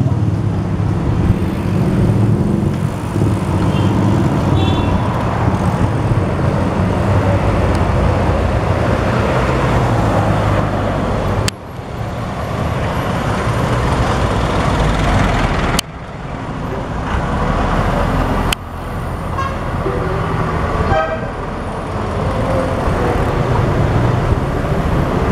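Street traffic: vehicle engines running close by, with short horn toots now and then. The sound breaks off and restarts abruptly three times.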